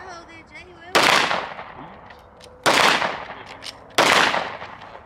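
Three shots from a semi-automatic handgun, spaced about a second and a half apart. Each is a sharp crack that trails off in an echo.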